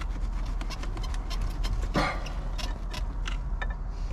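Irregular metallic clicks and clanks of oil filter pliers gripping and slipping on the crankshaft pulley while the crank of a flood-soaked OMC 3.0 marine engine is forced round by hand, with one louder knock about two seconds in. A steady low rumble runs underneath.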